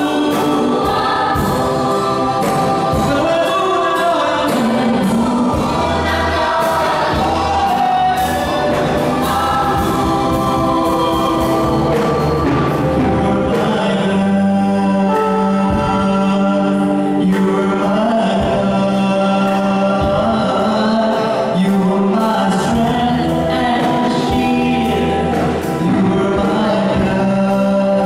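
A youth choir of young women singing a gospel praise-and-worship song together into microphones, over instrumental accompaniment with long held low notes.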